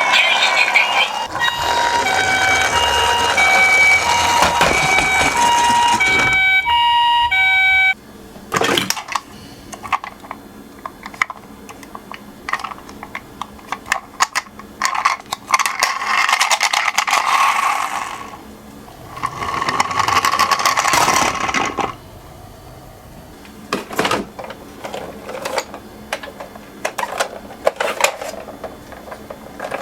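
A two-tone 'pee-poh' ambulance siren alternates between a higher and a lower note for about eight seconds, then cuts off abruptly. After that come clicks and knocks of miniature toy cars on a slope, with two longer rolling runs about halfway through.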